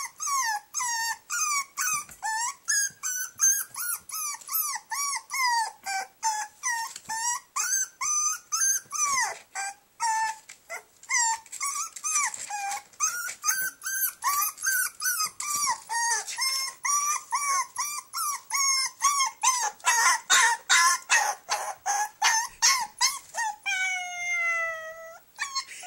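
Puppy crying in its cage: an unbroken run of short, high-pitched whines and yelps, a few a second, rising and falling in pitch, with a longer falling whine near the end. It is the distress crying of a young puppy shut in a crate for the night.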